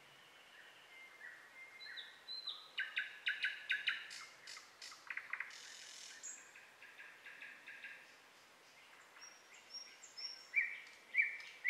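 Songbirds singing outdoors: a string of short chirps and whistled phrases, with a quick run of repeated notes about three seconds in and a quieter spell after the middle.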